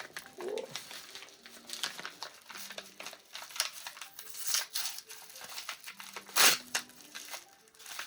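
Packaging crinkling and rustling in irregular bursts as a mail package is handled and opened, with one louder rustle about six and a half seconds in.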